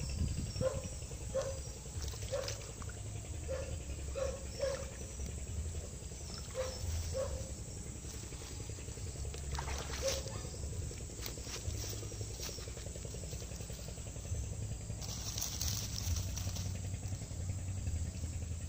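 Outdoor ambience with a steady low rumble of wind on the microphone. Through the first half an animal gives short calls, one every half second or so, and a brief rustle comes near the end.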